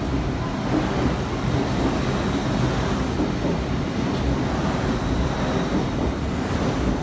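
LNER Class 800 Azuma train running along the platform: a steady, even rolling noise from its wheels and running gear on the rails.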